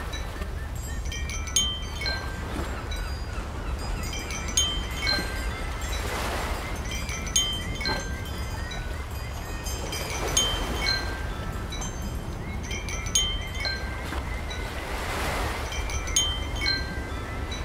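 Wind chimes tinkling irregularly, many short ringing notes at several pitches, over a steady low wind rumble. Broad rushes of noise swell and fade about every four to five seconds.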